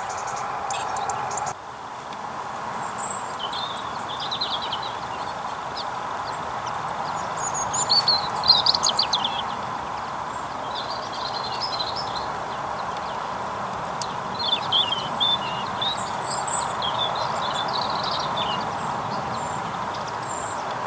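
Small songbirds chirping in scattered short runs, the loudest run about eight seconds in, over a steady background hum.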